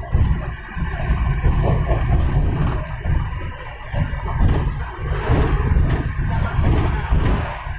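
Road and wind noise from a moving vehicle: a loud low rumble that rises and falls unevenly.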